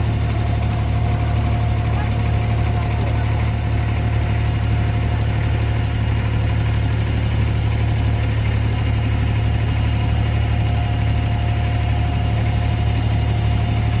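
Engine of an open canopied creek water taxi running steadily underway: a constant low drone with a faint steady whine on top.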